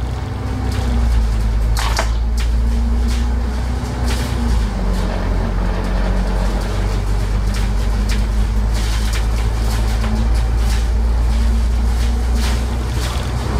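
Alexander Dennis Enviro500 MMC double-decker bus under way, heard from inside: a steady low engine drone with a faint tone that drifts slightly in pitch, and scattered clicks and rattles, a cluster of them in the last few seconds.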